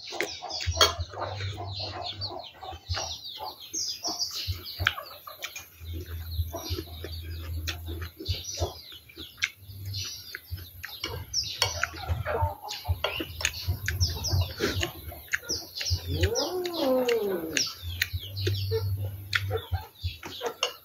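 Small birds chirping in quick falling notes again and again, with chickens calling around them; one longer, falling call comes about sixteen seconds in. Short clicks from eating with a spoon are mixed in.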